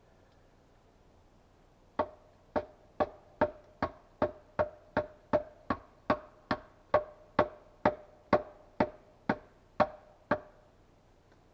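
Wood being struck hard and steadily by a hand tool, about twenty knocks at a little over two a second, each with a short hollow ring. The knocks start about two seconds in and stop near the end.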